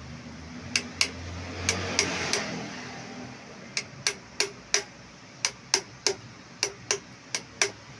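Light hammer taps seating a wheel bearing into a shimmed, loose aluminium motorcycle brake drum hub: sharp metallic taps with a short ring, in quick runs of two to four, about sixteen in all. A brief scraping noise comes in the first few seconds.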